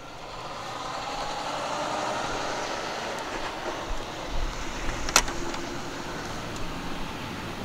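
A passing road vehicle: a broad rush of traffic noise swells over the first couple of seconds, then slowly fades. A single sharp click comes about five seconds in.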